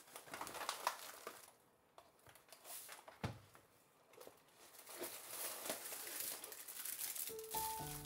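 Rustling and crinkling of a canvas tote bag and plastic grocery packaging as groceries are lifted out onto a kitchen counter, in irregular spurts with short pauses. Background music comes in near the end.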